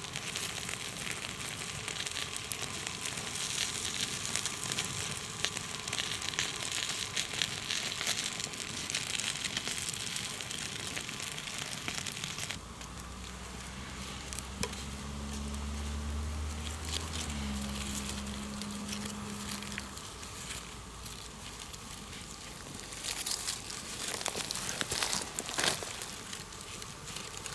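Food sizzling and crackling in a pan over a campfire, with a dense hiss full of small pops. About halfway through the sound changes abruptly and a low steady drone joins in for several seconds, before the crackling carries on to the end.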